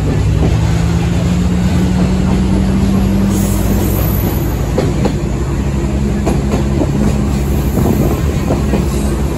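Sagano Romantic Train running along the line, heard from inside its open-sided carriage: a steady low rumble and drone, with the click and rattle of wheels over the rails growing denser from about halfway through.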